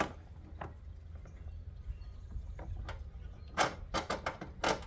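Plastic intake airbox being pushed down and seated, giving a few scattered light clicks and then a cluster of sharper plastic knocks and rattles near the end.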